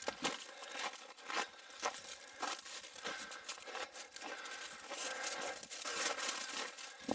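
Footsteps in boots crunching on packed snow at a walking pace, about two steps a second.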